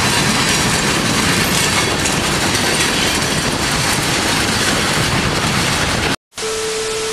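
Freight train cars rolling past close by: a loud, steady rush of wheels on the rails. The sound cuts off suddenly about six seconds in, followed briefly by a steady tone.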